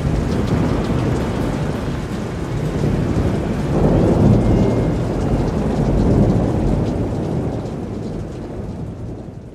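Recorded thunderstorm of steady rain and rolling thunder, swelling about four seconds in and again around six seconds, then fading out near the end.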